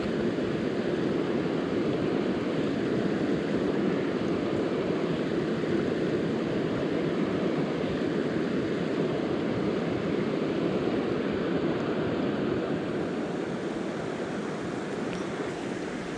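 Steady rushing of a mountain river, a constant wash of flowing water that eases slightly near the end.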